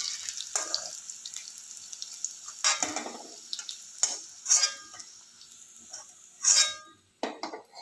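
Potatoes deep-frying in oil in a metal kadai, sizzling, as they are lifted out with a metal ladle that scrapes and clinks against the pan several times. The sizzle dies down toward the end as the pan empties.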